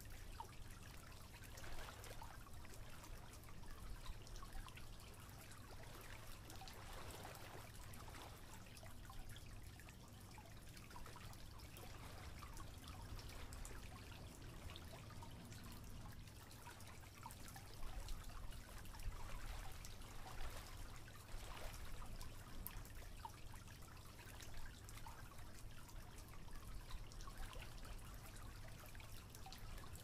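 Faint trickling water with small drips, over a steady low rumble.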